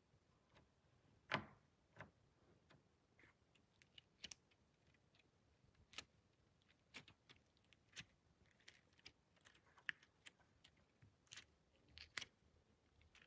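Faint, scattered sticky clicks and pops of slime being handled, a dozen or so spread unevenly with the loudest about a second in, over near silence.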